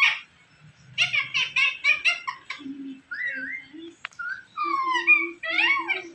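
Indian ringneck parrot chattering and mimicking speech in a high, squeaky voice: a quick run of syllables about a second in, then short rising and falling whistled calls. A single sharp click just past the middle.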